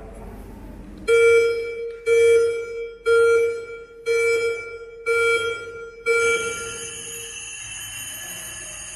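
Countdown timer sound effect from a projected countdown animation: six beeps, one a second, each fading quickly. The last beep runs longer and gives way to a steady high shimmering tone.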